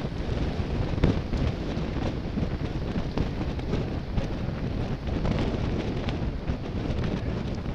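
Wind buffeting the microphone of a camera riding on a road bicycle at speed: a steady low rumble, with a sharper knock about a second in.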